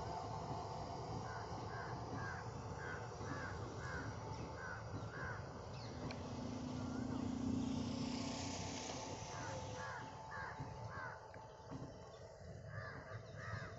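Crows cawing in quick runs of calls over the low, steady rumble of a passenger train rolling slowly past behind an electric locomotive. A low tone sounds briefly about six seconds in.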